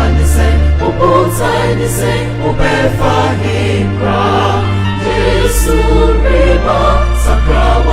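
Gospel music: a choir singing over long held bass notes.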